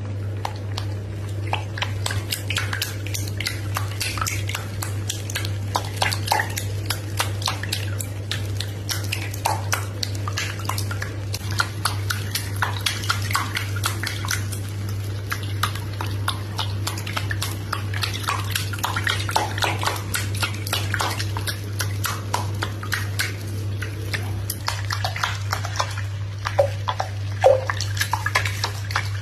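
Bathwater splashing lightly and bubble-bath foam crackling with many small irregular clicks as a hairless Sphynx cat paddles a front paw through it, over a steady low hum.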